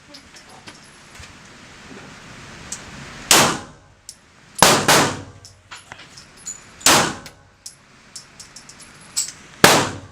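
Handgun shots fired at a shooting range: five sharp shots at an uneven pace, two of them in quick succession, each with a short ringing echo.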